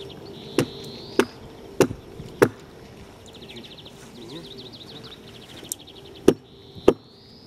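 Axe chopping into the wood of a felled tree. There are four sharp blows about 0.6 s apart, a pause, then three more, the first of them light, near the end.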